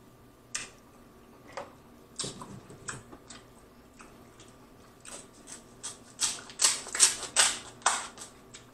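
Kitchen shears cutting through a king crab leg's shell: a few scattered sharp cracks at first, then a quick run of crunching snips and cracks over the last few seconds.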